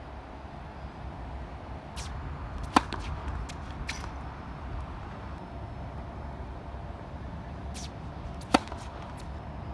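Tennis racquet striking the ball: a sharp loud hit about three seconds in and another near the end as a serve is struck, with fainter ball hits and bounces between them. A steady low rumble of background noise runs underneath.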